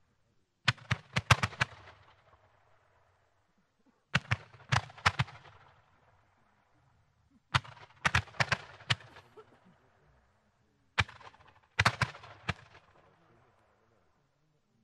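Brocade Crown Mines roman candles (1.9-inch) firing: four volleys about three and a half seconds apart, each a quick run of several sharp launch reports with an echoing tail.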